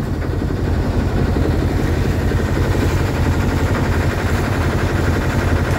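The 1978 Hughes 35 sailboat's engine running steadily as the boat motors under way: a constant low drone with a steady hiss of water and air over it.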